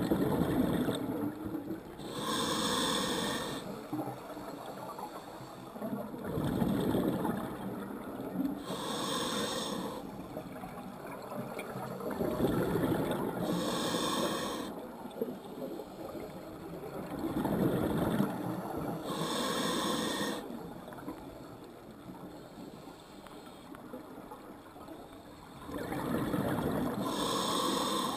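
Scuba diver breathing through a demand regulator underwater, about five breath cycles. Each is a short hissing inhale through the regulator followed by a longer bubbling exhale.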